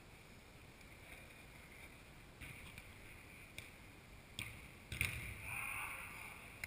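Football play in a large indoor hall: a few sharp knocks of the ball being kicked, the loudest about five seconds in, with a short shout just after it, over a steady background hiss.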